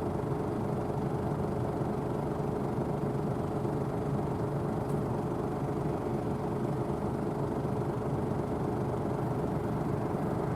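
Claas Tucano 570 combine harvester running with a steady, even engine drone.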